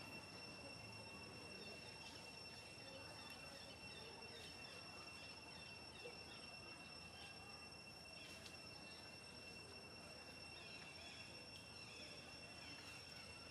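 Faint outdoor ambience: a steady, high-pitched insect drone throughout, with scattered faint chirps over it.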